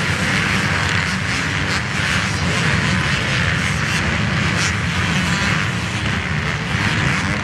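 A pack of MX2 motocross bikes racing away from the start, their engines blending into one loud, steady drone.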